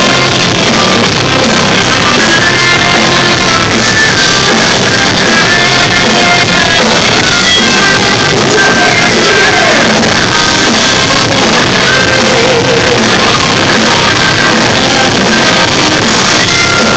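A live rock band playing loud with sung and shouted vocals. It is heard through a phone's overloaded microphone, so the sound is dense and distorted.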